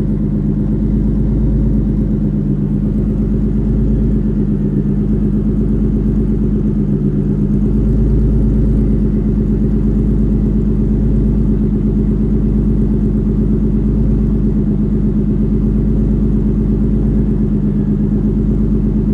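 Infiniti G35's 3.5-litre V6 idling steadily, shortly after starting up on a replacement ECU and a fresh tune.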